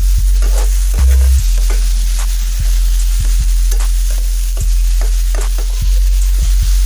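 Vegetables frying and sizzling in a pan while a spatula stirs them, with irregular scrapes and knocks against the pan, over a steady low hum.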